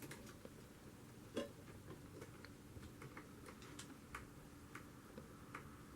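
Faint, irregular small ticks and clicks of a small screwdriver driving tiny screws into a laptop screen's metal mounting rails, with one louder knock about a second and a half in.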